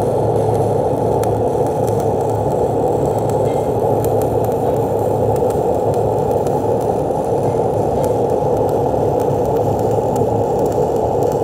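Stick-welding arc of a 309L stainless electrode burning along a fillet joint between stainless and carbon steel plate: a steady, unbroken crackle as the bead is laid.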